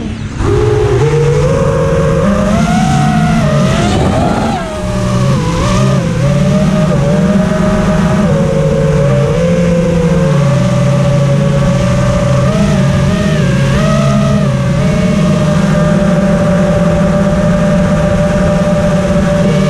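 FPV racing quadcopter's brushless motors and propellers whining, recorded onboard. The pitch wavers up and down with throttle changes through the first half, with a brief drop in level about four to five seconds in, then holds nearly steady for the last few seconds.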